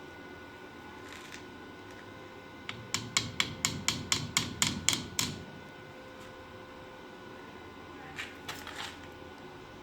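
Workshop hand-tool work on the engine: a quick run of about a dozen sharp taps, about four a second, then a few fainter knocks near the end.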